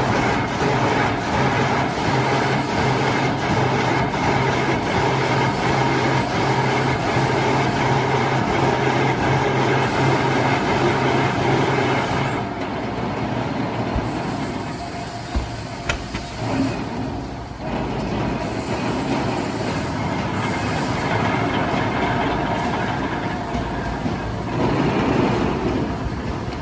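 Heavy machinery running with a steady low hum that stops about halfway through, after which the noise is quieter with a few knocks.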